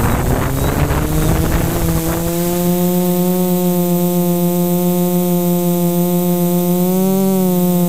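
Lumenier QAV540G quadcopter's brushless motors and propellers spinning up for takeoff: a rising whine through gusty rush for the first two seconds, then a steady multi-tone drone as it climbs. The pitch bends up and back down briefly near the end.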